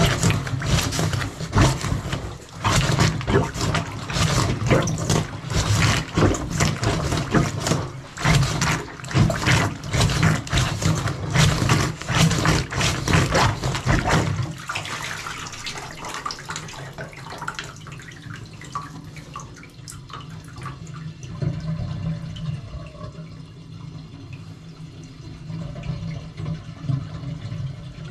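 Water churning and gurgling in a blocked bathtub drain, loud and choppy, then settling about halfway through to a quieter, steady flow of water.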